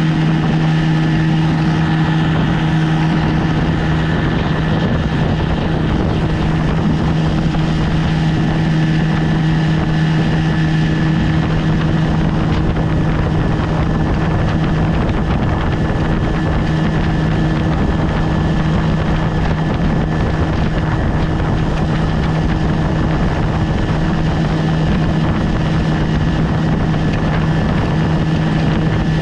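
1973 Johnson 20 hp two-cylinder two-stroke outboard motor running at a steady, unchanging speed, its even hum holding one pitch throughout.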